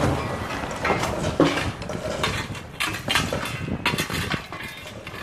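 Irregular knocks, clinks and scrapes of hand excavation work on rocky ground: buckets and tools being handled.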